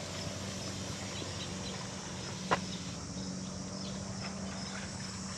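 Battery-powered backpack sprayer's pump motor humming steadily while spraying, with one sharp click about two and a half seconds in.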